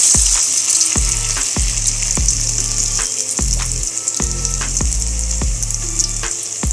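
Wax gourd and gram-flour batter fritters deep-frying in hot oil in a wok: a loud, steady sizzle. It flares up right at the start as a fresh fritter is dropped in.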